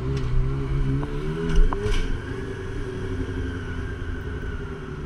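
Honda CB400 Super Four's inline-four engine running at low, fairly steady revs as the bike rolls along slowly, with a few light clicks in the first couple of seconds.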